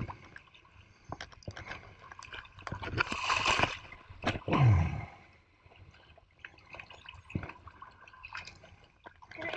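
Seawater splashing and dripping as a wooden-framed shrimp push net is swept through shallow water and lifted out, water streaming through the mesh. A rush of water builds about three seconds in and peaks in the loudest splash a second later, followed by scattered drips.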